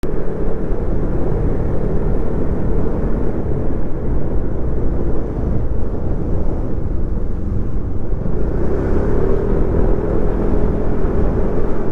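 A motor vehicle's engine running steadily while riding along a street, with road and wind noise.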